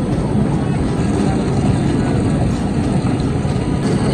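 Steady mechanical drone of a roller ice cream machine running, its large drum turning.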